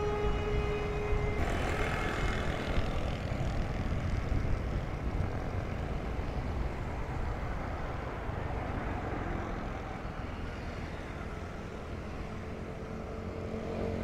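Road traffic heard from a moving vehicle on a busy city road: a steady rush of engines and tyres that slowly grows softer. At the start a steady pitched tone sounds and cuts off abruptly about a second and a half in.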